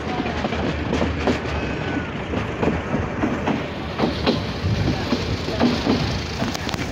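Passenger train running along the track, heard from a carriage window: a steady rumble with the wheels clacking over the rail joints.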